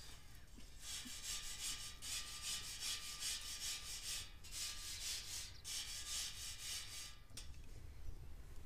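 Quick, rhythmic scraping strokes, like rubbing or rasping, in three runs with two short pauses.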